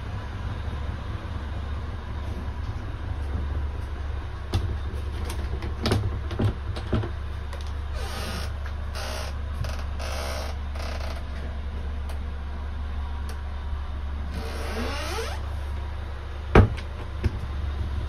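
Wooden cabin doors and a rope-loop latch being handled: clicks and knocks, a rising creak, and one sharp knock near the end, over a steady low hum.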